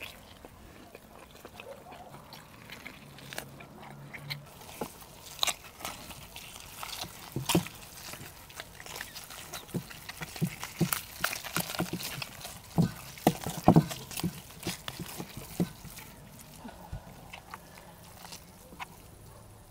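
Eating sounds: wet chewing, lip smacking and sucking on roast meat, mixed with roast chicken being torn apart by hand. Many short clicks and smacks, thickest in the middle and loudest about thirteen to fourteen seconds in.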